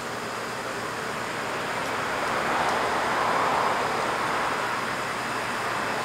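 A passing vehicle heard as a steady wash of traffic noise, swelling gradually to a peak around the middle and easing off a little.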